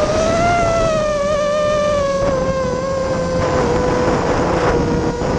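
ImmersionRC Vortex 250 Pro quadcopter's motors and propellers whining in flight, heard from the onboard GoPro. The pitch rises a little about half a second in, then drifts slowly down, with two stretches of rushing air noise in the middle.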